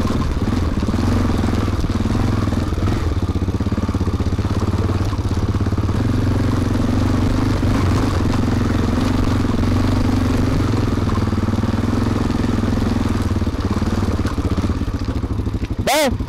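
Honda Dominator NX650's single-cylinder four-stroke engine running steadily, with a brief sharp sound near the end.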